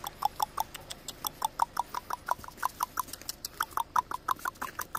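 Rapid lip-kissing squeaks, about six a second with a short pause midway, made to call a dog over.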